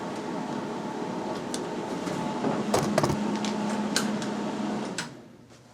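A welder's cooling fan running with a steady hum, with a few light clicks and taps of handling. About five seconds in it is switched off and dies away quickly.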